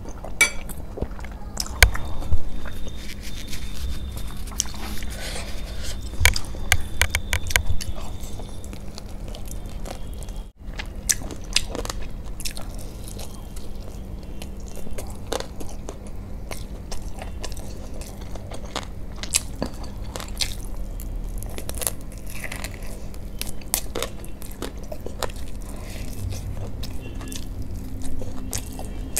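Close-miked eating: chewing and biting a mouthful of masala Maggi noodles, then bites of fried chicken lollipop, with many wet mouth smacks and crunches. A faint steady hum sits underneath.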